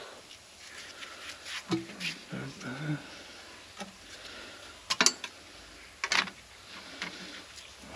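Plastic parts and packaging of a new replacement intake manifold being handled: scattered clicks and knocks, the sharpest about five and six seconds in.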